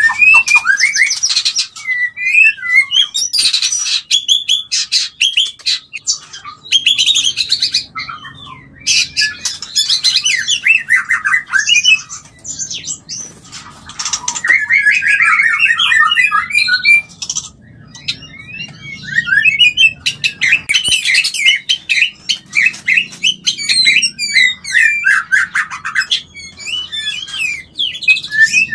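White-rumped shama (murai batu) singing its courtship song: a loud, rapidly varied stream of clear whistles, sliding notes, fast trills and harsher chattering notes, broken by a couple of short pauses.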